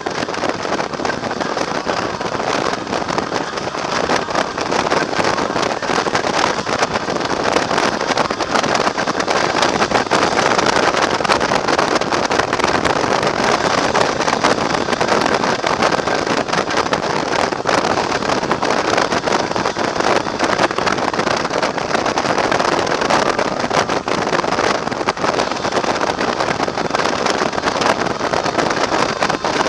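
Steady rush of wind over the microphone of a camera on a motorcycle cruising at highway speed, with the bike's running and road noise blended in.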